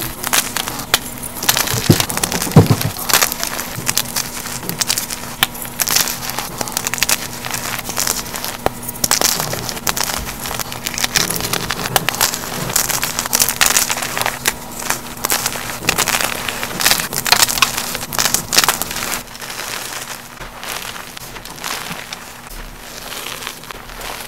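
Blocks of gym chalk crushed by hand, giving a dense run of crisp crunches and crackles as they crumble into powder. About three quarters of the way through it turns softer, the hands squeezing and pressing loose chalk powder. A faint steady hum sits underneath until then.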